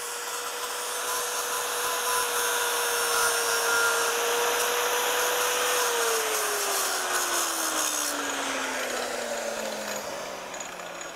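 Angle grinder grinding the top of a freshly welded metal fitting clamped in a vise: a steady grinding hiss over the motor's whine. About halfway through, the whine starts dropping steadily in pitch, and the grinding noise eases off near the end.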